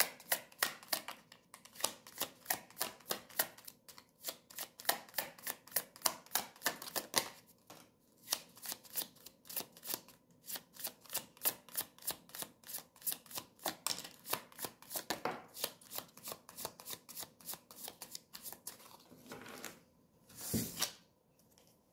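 A tarot deck being shuffled by hand: a quick run of soft card slaps, about three or four a second, with a few short breaks. Near the end comes one louder swish as cards are drawn and laid on the table.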